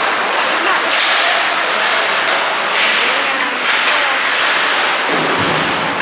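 Ice hockey game on the rink: skate blades scraping the ice in a steady hiss, with a few sharp knocks of sticks and puck.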